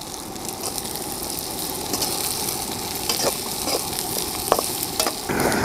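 Finely chopped onion frying in hot oil, a steady sizzle with crackles and a few sharp clicks. The sizzle gets louder about five seconds in.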